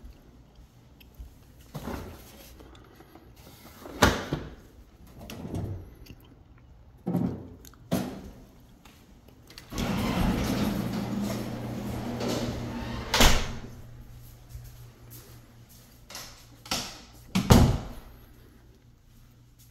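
A house door being opened and walked through: scattered knocks and thuds, with a steady rushing scrape lasting a few seconds in the middle.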